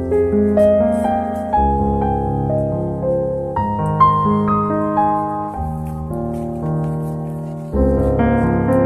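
Background music: a gentle solo piano piece, with notes and chords played at a slow, even pace.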